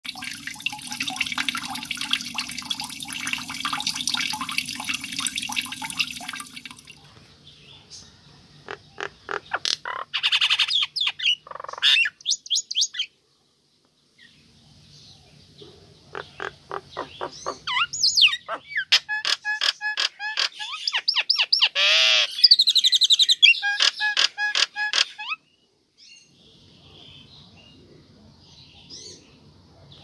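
A noisy intro jingle for about the first six seconds, then a female common myna calling: sharp clicks, whistles and fast runs of repeated notes, with a long whistle that rises and falls near the loudest part, about two-thirds of the way in.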